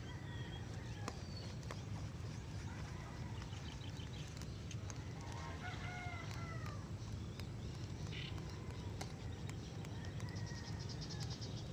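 A rooster crows once, about halfway through, over a steady low background rumble.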